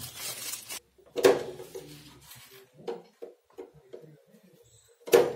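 Handling noise of electrical cables and a flexible metal conduit being moved around a motor starter panel: rustling, scattered small knocks, and two louder thumps, about a second in and near the end.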